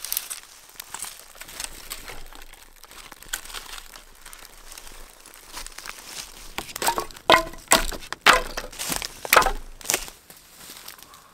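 Small campfire of birch bark and twigs crackling as it catches, with a run of louder sharp cracks and snaps in the second half.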